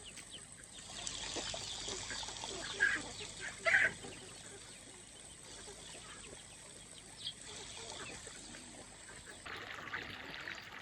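Domestic ducks quacking, with two short loud calls about three and four seconds in and a few fainter ones, over a steady hiss.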